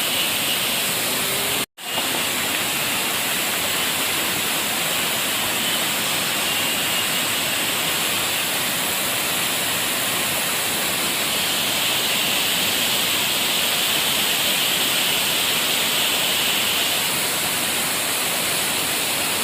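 Waterfall pouring: a steady, loud hiss of falling water. The sound cuts out for an instant about two seconds in, then resumes.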